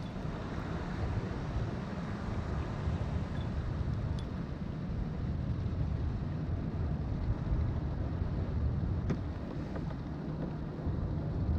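Steady low rumbling noise, with two faint clicks about four and nine seconds in.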